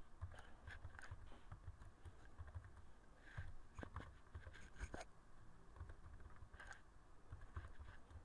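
Faint computer keyboard typing: irregular key clicks.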